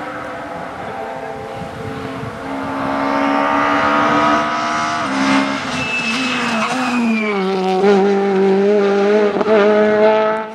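Peugeot 208 rally car's engine revving hard as it approaches, rising in pitch with a gear change about halfway. The pitch then falls and the engine holds steadier revs as the car goes through the corner and away. The sound cuts off suddenly at the end.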